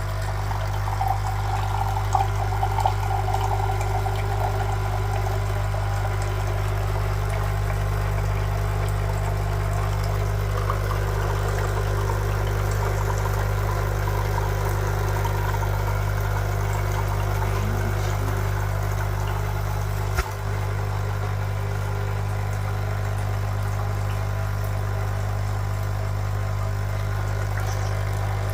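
Krups Dolce Gusto Infinissima capsule machine's vibration pump buzzing steadily as it pushes hot water through a chocolate capsule to brew the drink. The buzz dips for a moment with a click about twenty seconds in.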